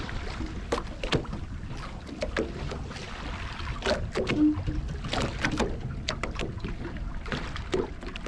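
Choppy sea water slapping against the hull of a drifting boat: irregular splashes and knocks over a low, steady rumble.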